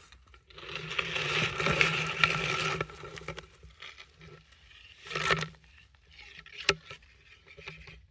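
Scraping and rustling: a long scrape of about two seconds starting about half a second in, a shorter scrape past the middle, then a sharp click followed by a few faint ticks.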